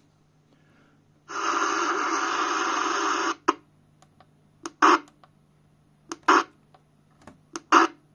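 CB radio receiver static from its speaker: an even hiss lasting about two seconds, starting just over a second in, then several short bursts of static, over a faint steady low hum.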